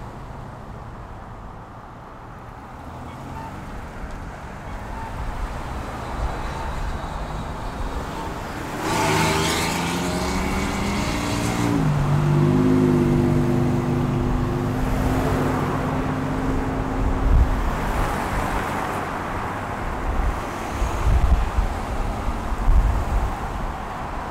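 A motor vehicle's engine passing close along a street: the sound builds, its tone drops in pitch about nine seconds in and then holds steady for several seconds. Near the end there is uneven low rumbling, with road traffic noise behind.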